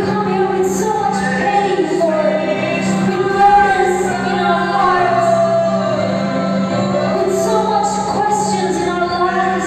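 Young women singing a worship song into microphones with acoustic guitar accompaniment, over a steady low hum.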